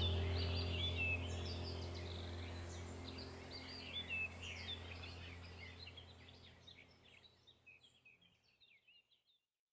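Small birds chirping and twittering in quick short notes over a steady low hum, the whole fading out to silence near the end.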